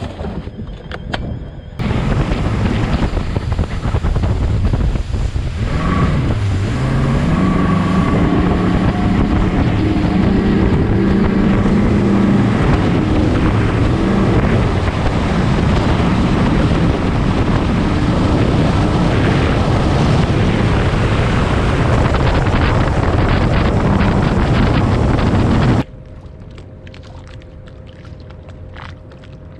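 Bass boat running at speed across open water: the outboard motor's drone under heavy wind buffeting on the microphone and the rush of spray off the hull. It starts about two seconds in, the engine's pitch dips and climbs back a few seconds later, and the run cuts off abruptly near the end.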